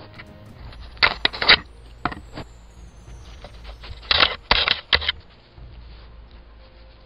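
A badger rubbing and bumping against the trail camera's casing, making loud scrapes and knocks in two clusters: one about a second in and another from about four to five seconds in, with a few lighter scrapes between.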